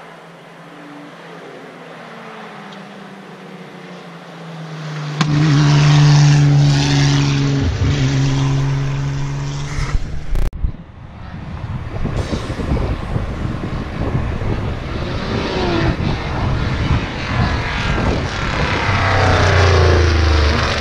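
Open-wheel hillclimb race car's engine revving hard up the mountain road, its pitch rising again and again as it pulls through the gears. It grows louder as the car comes past near the end, with a brief break in the sound about halfway.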